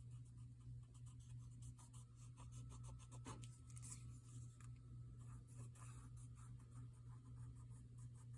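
Faint, quick rubbing and dabbing strokes as green colour is worked onto the edges of a paper craft piece, over a steady low electrical hum.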